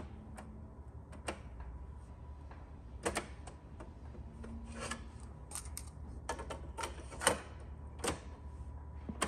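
Plastic clicks and clunks from the Panasonic RX-D10 boombox's cassette deck as its keys are pressed and the cassette door is opened and snapped shut by hand. The clicks come irregularly, in small clusters.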